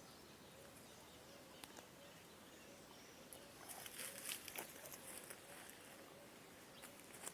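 Faint outdoor quiet with a distant bird repeating a short, soft note over and over, and a brief patch of rustling and crackling near the middle.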